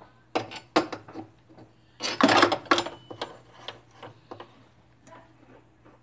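Metal clanks and rattles from an opened steel safe's door and fittings being handled: two sharp knocks soon after the start, a louder clattering burst about two to three seconds in, then a few lighter knocks.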